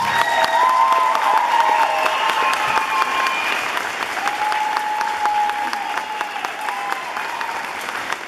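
Theatre audience applauding, dense clapping that slowly dies down, with a few voices holding long cheers over it.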